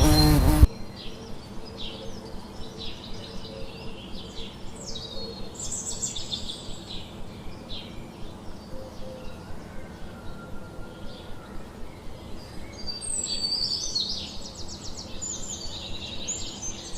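A loud buzz stops abruptly within the first second. Then birds chirp and call, with many short high-pitched notes and quick trills in the last few seconds.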